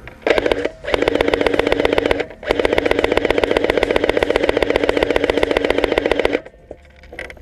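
M4-style airsoft rifle firing on full auto: two long bursts of rapid shots, the first about two seconds long and the second about four, with a short break between them.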